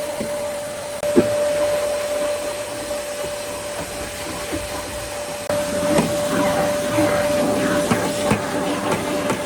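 A small motor running with a steady whine. There is a single knock about a second in, and clattering over the second half.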